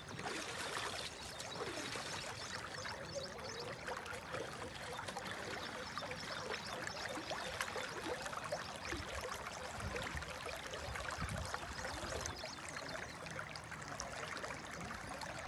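Floodwater flowing: a steady wash of running water with fine trickling.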